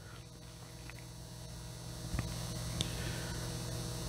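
Steady low electrical mains hum, with three faint clicks.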